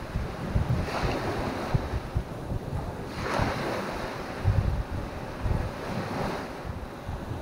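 Small sea waves washing onto the shore in three swells a few seconds apart, with wind gusting on the microphone.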